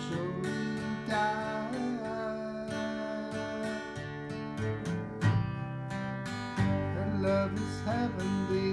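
Acoustic guitar strummed and picked, its chords ringing out, with a sharper, louder strum about five seconds in.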